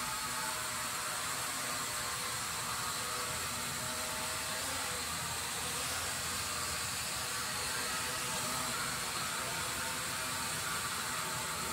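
Small toy quadcopter drone in flight, its propellers giving a steady whirring hiss.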